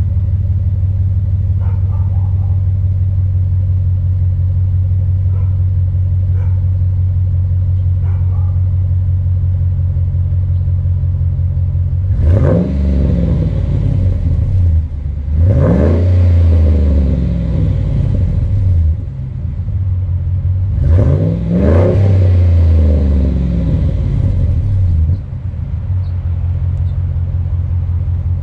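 A 2012 Ram 1500's 5.7 Hemi V8, freshly rebuilt with a new cam and lifters, idles steadily through its exhaust, then is revved. There is a short rev about twelve seconds in, a longer one held for a few seconds, then two more in quick succession around the twenty-one-second mark. Each rises in pitch and falls back to idle.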